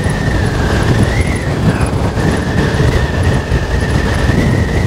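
Will Mason T1S electric moped riding along, its motor giving a steady high whine that wavers slightly in pitch. Heavy wind rumble on the microphone from the riding speed.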